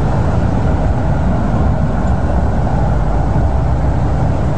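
Steady low rumble of a car heard from inside the cabin: engine and road noise.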